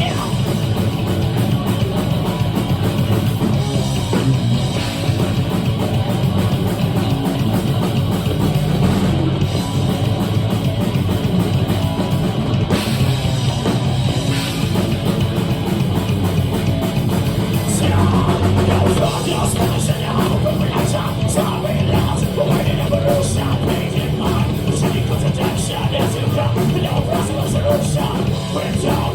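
Thrash-metal band playing live: distorted electric guitars, bass and a drum kit going at full tilt. Recorded on a phone's microphone in the club.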